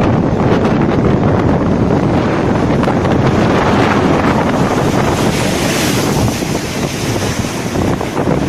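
Sea waves surging and breaking, with strong wind buffeting the microphone. A wave's hissing wash rises about six seconds in.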